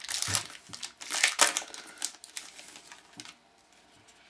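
Foil trading-card pack wrapper crinkling as it is handled, with the cards rustling. The sound is dense for about two seconds, then thins to a few light rustles.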